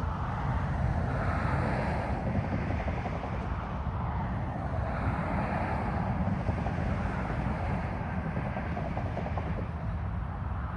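Steady low rumble of a freight train approaching in the distance, with no horn.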